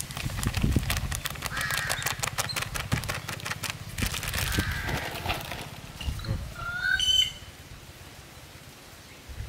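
Plastic bag of flour crinkling and rustling as it is emptied and shaken out over an aluminium pan, for about the first four seconds. Birds call a few times in the background, loudest about seven seconds in.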